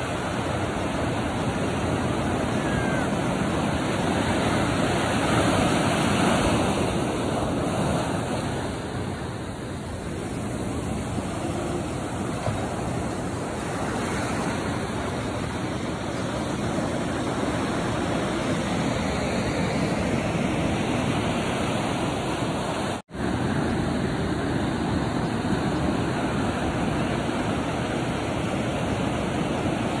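Small ocean waves breaking and washing up a sandy beach: a continuous rushing surf that swells and eases as each wave comes in. The sound cuts out for an instant about three-quarters of the way through.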